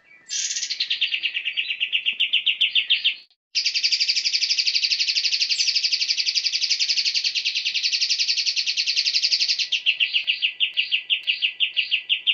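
A songbird singing a long, fast, high trill of many notes a second. It breaks off briefly about three seconds in, then runs on without a pause and turns into a slower string of separate notes near the end.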